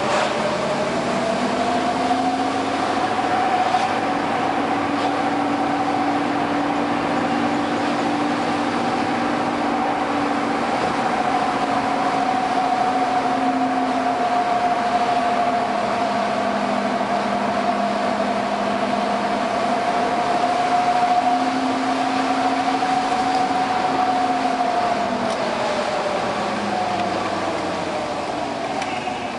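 Car driving with steady road noise and an engine and drivetrain whine that rises as it picks up speed at the start, holds steady, then falls as it slows near the end.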